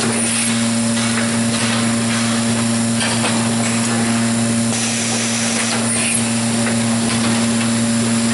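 Case packer with a pneumatic gripper head running through its cycle: a steady machine hum, broken by stretches of air hiss that start and stop abruptly and by short mechanical clicks as the head lowers and lifts containers.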